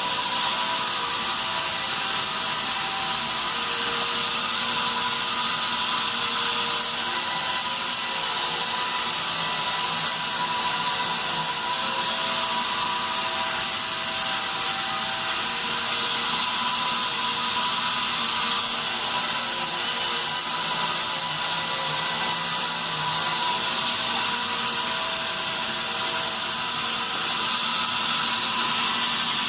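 Band sawmill running steadily as it saws pine: a constant whine of several steady tones over a hiss, with no breaks.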